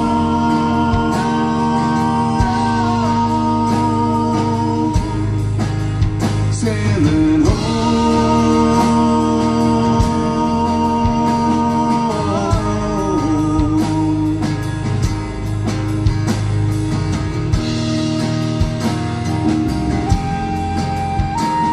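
Live folk-rock band playing an instrumental passage: strummed acoustic guitar, electric bass and drums under long held melody notes from a tin whistle, the melody note changing every few seconds.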